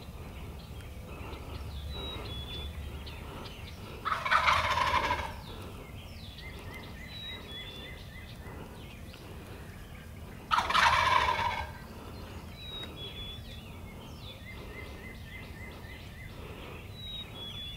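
Wild turkey gobbling twice, each rattling gobble just over a second long, about six seconds apart, with faint small-bird trills and chirps in between.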